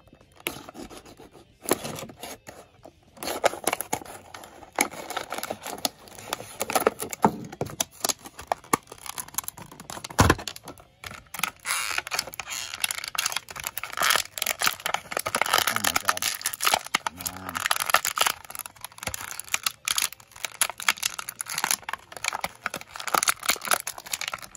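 Clear plastic packaging of a small classic Sonic figure crinkling and tearing as it is pulled open by hand, with irregular crackles and clicks and one sharp snap about ten seconds in.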